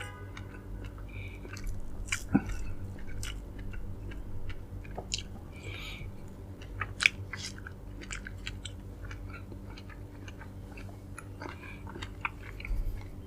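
Close-up chewing of dragon fruit: soft, wet mouth smacks and clicks coming irregularly, with a couple of sharper bites standing out, one about two seconds in and one about seven seconds in.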